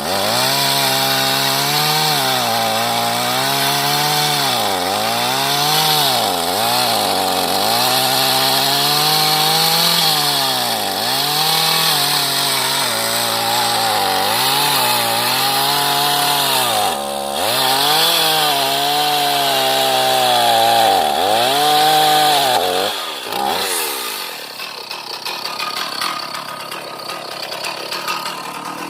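Two-stroke chainsaw cutting into the base of a large mahogany trunk, its engine pitch dipping again and again as it bogs under load and then recovering. About 23 seconds in the engine winds down sharply and the sound drops to quieter background noise.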